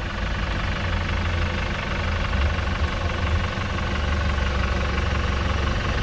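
Off-road 4x4's engine running steadily at low revs, a deep even hum with no change in speed.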